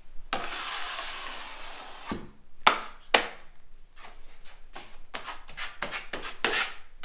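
Drywall knife working thick quick-set joint compound: a long scrape lasting nearly two seconds, two sharp knocks about three seconds in, then a run of short scraping strokes as mud is loaded off a metal mud pan and spread onto drywall.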